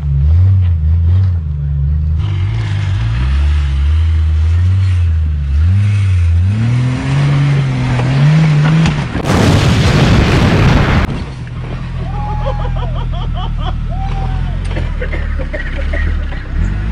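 Off-road Jeep engine revving up and down, its pitch climbing through the first several seconds, then a loud rushing hiss for about two seconds. After that the engine runs more steadily, with faint voices in the background.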